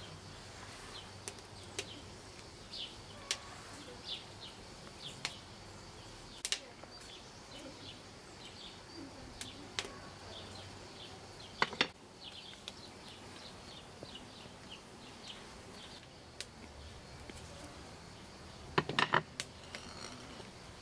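Small birds chirping off and on, short high calls scattered throughout, over a faint steady background. A few light knocks stand out, the loudest a little before halfway and again near the end.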